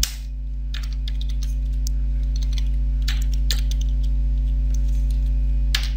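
Computer keyboard keystrokes, irregular clicks as code is typed, over a steady low electrical hum.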